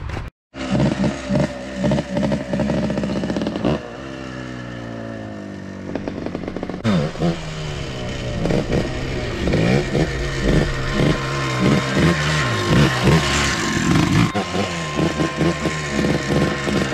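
Yamaha Blaster quad's single-cylinder two-stroke engine revving. After a short gap at the start it settles to a steady run for a few seconds, then from about seven seconds in the throttle is blipped over and over, the pitch rising and falling about once a second.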